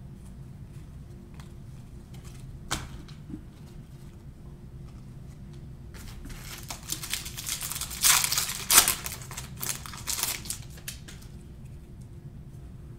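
Trading card pack wrapper being torn open and crinkled by hand, a sharp click a few seconds before it, the crackling rising to its loudest in the middle and dying away.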